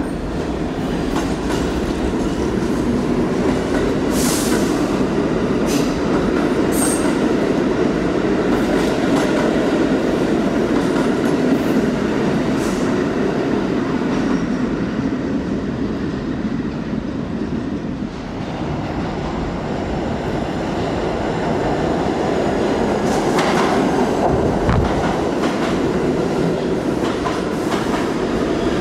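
New York City Subway C trains in a station: one runs out with a steady rumble of wheels, rail-joint clicks and a brief high wheel squeal. The rumble dips about two-thirds of the way through, then rises again with more clicking as the next train comes in.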